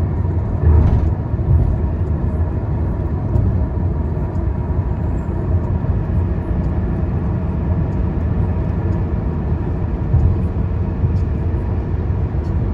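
Steady low rumble of a car on the road, with no sudden changes.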